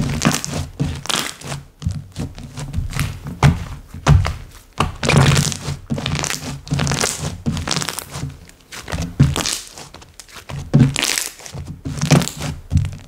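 Slime being squished, pressed and pulled by hand, making an irregular run of sticky clicks and pops over soft low thuds.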